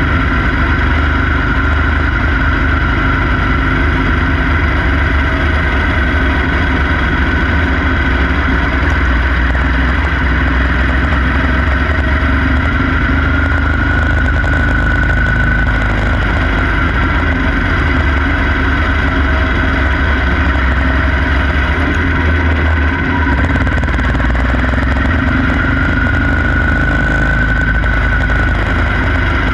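Quarter midget race car's small single-cylinder engine running hard at racing speed, heard from on board. Loud and steady, its pitch rising a little twice.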